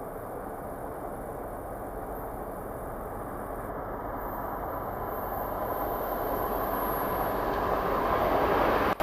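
MBTA train approaching, its rail noise growing steadily louder.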